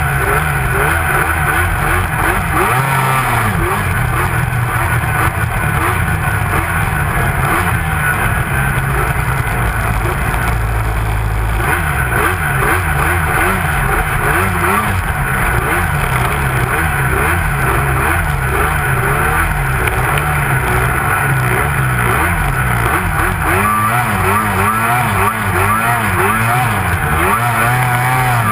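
Arctic Cat Crossfire 800 snowmobile's two-stroke engine running hard while tree riding, the throttle repeatedly blipped so the engine note rises and falls over and over.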